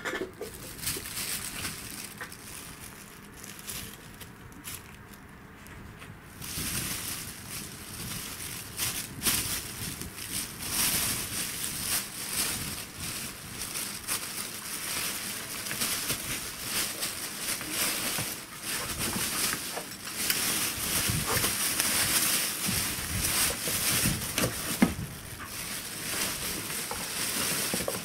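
Thin plastic bags crinkling and rustling as a Pembroke Welsh corgi and a kitten tussle in and around them. Quieter at first, louder and busier from about six seconds in.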